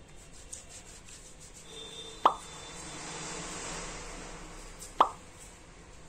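Hands rubbing together with hand sanitizer gel, a soft rubbing hiss that swells and fades, broken by two sharp plops about two and five seconds in.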